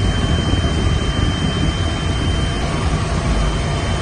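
Running noise inside a moving locomotive cab: a steady heavy rumble from the locomotive and its wheels on the track, with a thin steady high whine over it.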